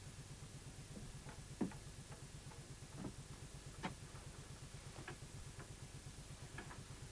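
A few faint, scattered knocks and clicks, like small objects being handled, over a steady low hum.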